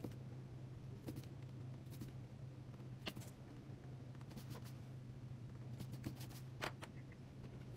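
Mechanical pencil drawing on paper, a handful of short faint scratchy strokes scattered over a steady low hum.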